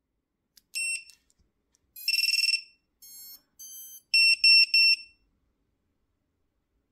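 JHE20B Finder Lipo-beeper's piezo buzzer sounding shrill, high beeps as the quad's LiPo battery is plugged in. There is one short beep, then a fast warbling beep, then three loud beeps near the end. Between them come quieter stepped tones of changing pitch, typical of the motors' ESC power-up tune.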